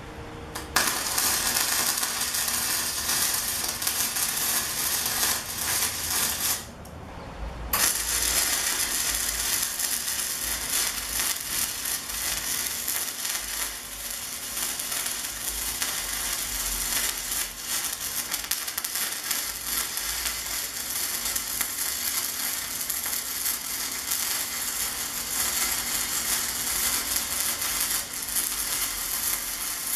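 Electric arc welding on square steel tubing: a steady crackling hiss. It starts about a second in, breaks off for a moment around six to seven seconds, then runs on until just before the end.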